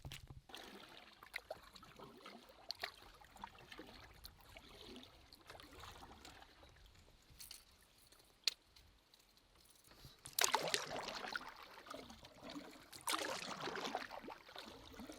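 Water trickling and dripping around a canoe as it is paddled, with small knocks. Two louder paddle strokes come near the end.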